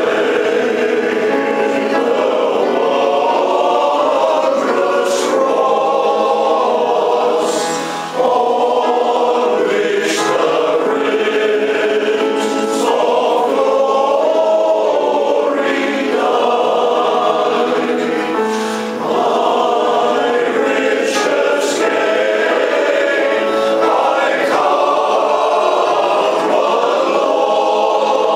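Male voice choir singing in parts, sustained phrases with brief pauses for breath about 8 and 19 seconds in.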